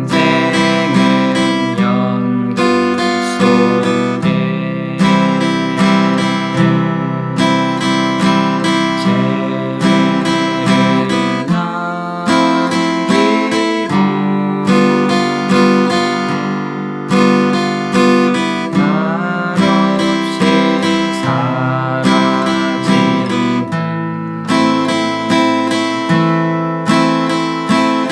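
Acoustic guitar strummed steadily in 3/4 time, moving between open chords such as C, A minor and D minor. Each bar opens with a down-stroke followed by down-up strums.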